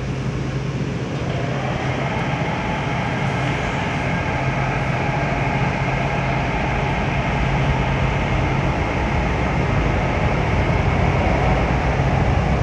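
Metro train running, heard from inside the passenger car: a steady rumble of wheels on rail with a low hum, growing gradually louder.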